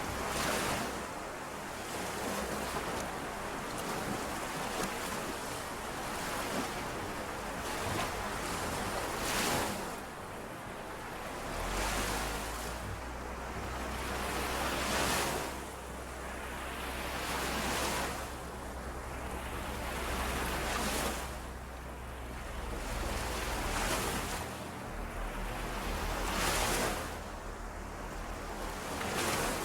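Small lake waves washing in and out on the shore, a swell of water every two to three seconds.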